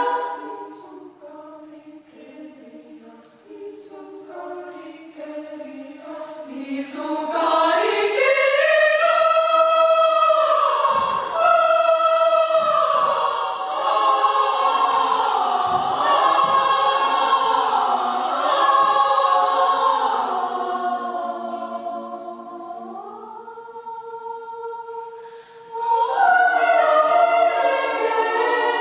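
Youth choir singing unaccompanied in many parts. It starts softly, swells to full voice about a quarter of the way in, eases back to a quiet held chord, then comes back in loudly near the end.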